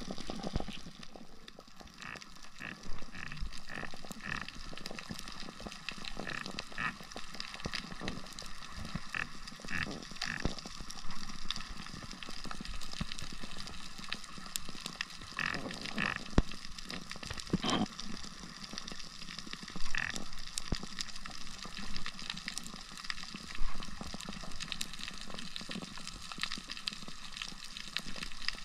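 Underwater ambience over a coral reef: a steady hiss with scattered crackling clicks throughout, and a few short groups of higher squeaks.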